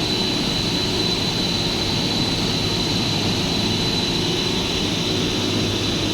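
Network-cable pair-twisting machinery running steadily: a constant mechanical drone with a low hum and a thin, steady high whine.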